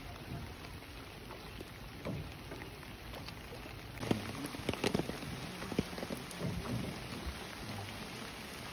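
Steady rain falling on river water, with scattered taps and knocks, busiest about four to five seconds in.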